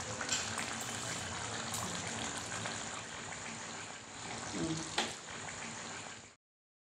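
Fish curry with potatoes simmering in a nonstick kadai: a steady bubbling hiss with a few small pops. It cuts off abruptly about six seconds in.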